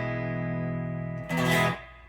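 Warmoth Stratocaster electric guitar with Lindy Fralin pickups played through an amp: a chord rings on, then a second chord is struck about a second and a half in and cut short just before the end.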